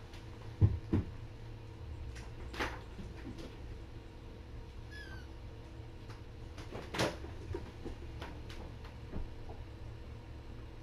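A short, high kitten mew about halfway through, between scattered knocks and clicks, the two loudest about a second in, over a steady low hum.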